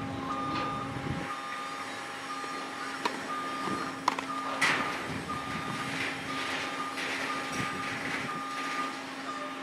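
Vehicle reversing alarm beeping steadily, one short beep of the same pitch about once a second. Two sharp racket strikes on a tennis ball about a second apart sound about three seconds in.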